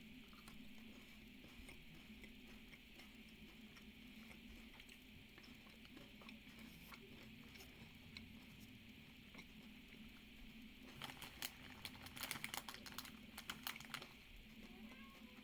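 Quiet room with a faint steady hum and scattered soft clicks, then a run of faint crackling clicks from about eleven to fourteen seconds in, from eating a crisp-rice milk chocolate bar.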